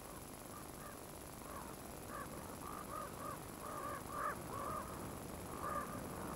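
Ravens calling at a carcass: a string of short, arched croaking calls, coming thicker after about two seconds, over a faint steady hiss.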